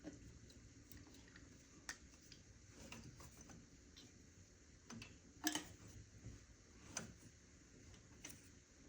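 Faint, irregular clicks and taps of small tools and parts being handled, the loudest about five and a half seconds in.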